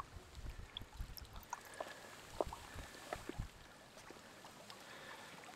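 Faint creek water trickling, with small splashes and drips and a few soft low thumps over the first three seconds or so, then quieter.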